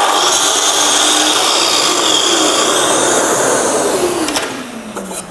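Festool Kapex KS 60 sliding compound mitre saw running and crosscutting a length of timber moulding in two. About four seconds in the motor is released and winds down with a falling whine.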